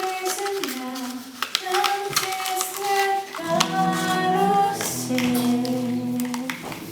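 Music with a steady melody line and sharp percussive clicks; fuller, lower chords join about three and a half seconds in.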